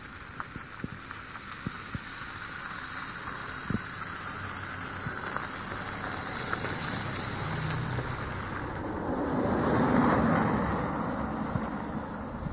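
Wind blowing in a snowstorm: a steady rushing noise that swells about nine seconds in and fades again.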